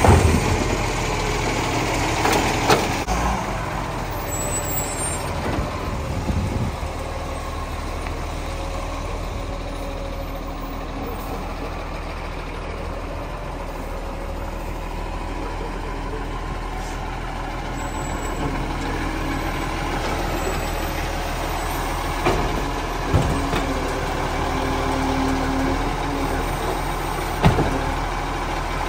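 Iveco Acco side-loading garbage truck's diesel engine running steadily as the truck moves up to the next bins. A few sharp knocks come from the automated bin-lifting arm handling wheelie bins, one right at the start and more near the end.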